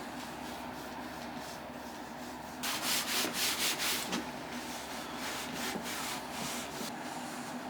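Hand sanding wood with abrasive paper, in quick back-and-forth strokes. The strokes are loudest about three seconds in for a second or so, then carry on lighter.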